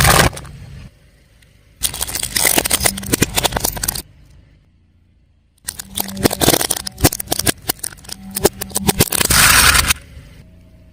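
Crunchy objects crackling and snapping as a car tyre rolls over and crushes them, with the low hum of the car's engine underneath. This comes in two spells: a short one about two seconds in, and a longer one from about halfway through until near the end.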